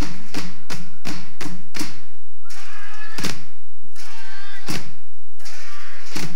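Plastic traffic cones played as drums: sticks strike them in a quick even beat, about three hits a second. After about two seconds this gives way to three heavy thumps with a ringing tail, about a second and a half apart, as the cones are swung down.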